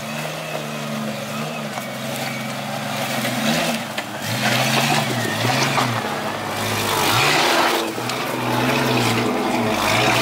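Jeep Cherokee XJ engine revving under load as it crawls up a steep boulder trail, its note dipping and rising again and again with bursts of throttle. Rock crunches and grinds under the tyres.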